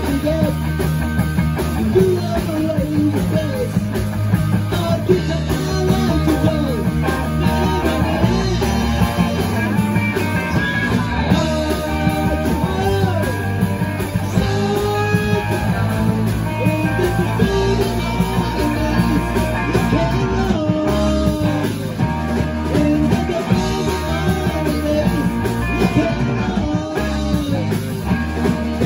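Rock band playing a rock and roll song live: a singer over electric guitars through Marshall amplifiers, electric bass and drums.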